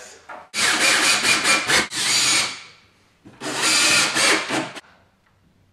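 Cordless drill driving wood screws up into a shelf board in two runs: one about two seconds long with stop-start pulses, then, after a short pause, another of about a second and a half.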